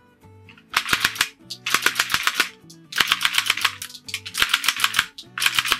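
Wooden rubber band machine gun fired fully automatic by turning its crank handle: rapid clacking in five short bursts as the mechanism releases band after band.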